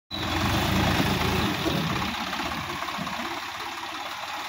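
Compact tractor's diesel engine running under load as it moves through a flooded field. It is loudest for the first second and a half, then eases to a steadier, lower running note.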